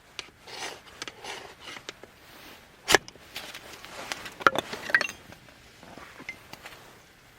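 Camp gear being handled: rustling and small knocks, one sharp knock about three seconds in, then a few short ringing clinks like metal cookware.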